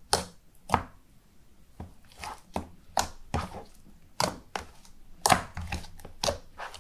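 Clear jam-texture slime being kneaded and squished by hand in a plastic tub to mix in dye, giving irregular squishy clicks about twice a second.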